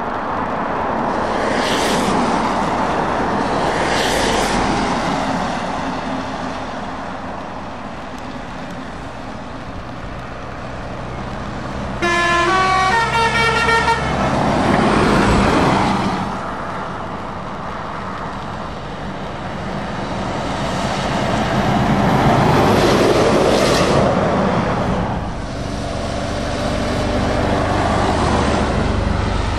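Lorries drive past one after another on a wet road, their engines and tyre hiss swelling and fading with each pass. About twelve seconds in, a truck's musical air horn plays a quick tune of several stepped notes for about two seconds.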